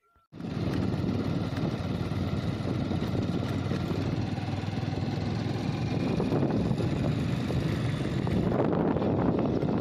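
Motorcycle being ridden along a dirt track: its engine running steadily under wind rushing over the microphone. It starts abruptly about a third of a second in.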